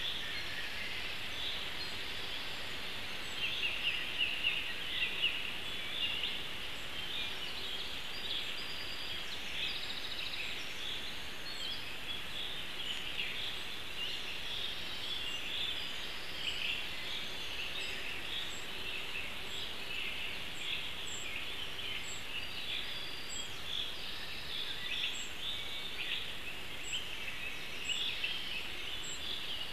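Forest ambience: many small birds singing and calling at once over a steady background hiss, most busily in the first few seconds.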